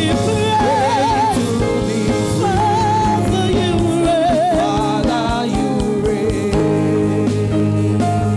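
Live gospel worship music: a singer's wavering vocal runs over a band with a steady beat. About two-thirds of the way through the voice drops out and the instruments carry on alone.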